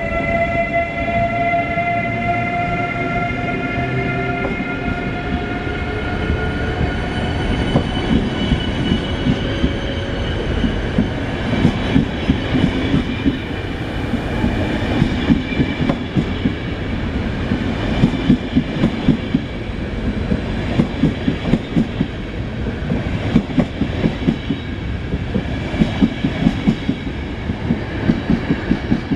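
Siemens Taurus 1216 electric locomotive pulling away, its traction equipment whining in several tones that slowly rise in pitch for the first several seconds and then fade. After that the EuroCity coaches roll past with a continuous clickety-clack of wheels over rail joints.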